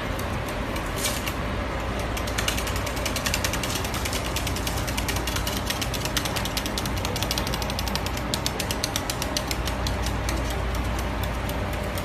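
White-bellied caique's claws clicking rapidly and irregularly on a wooden tabletop as it hops and scuttles about, over a steady low hum.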